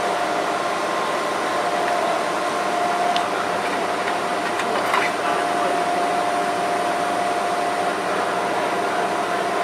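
Steady workshop machinery noise with a constant whine, plus two faint clicks about three and five seconds in as galvanized steel junction boxes are handled.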